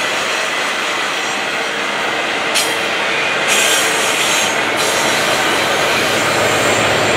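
Double-stack intermodal container cars of a CN freight train rolling past, steel wheels on the rails making a steady rushing rumble. A sharper hiss comes in briefly about two and a half seconds in, and again for about a second from three and a half seconds.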